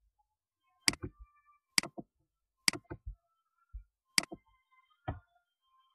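Computer mouse buttons clicking: four sharp clicks about a second apart, each followed by a softer release click, then a fainter click near the end.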